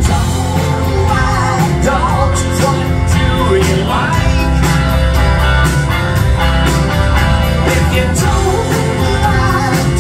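Live rock band playing loudly: electric guitars, electric bass guitar and a drum kit.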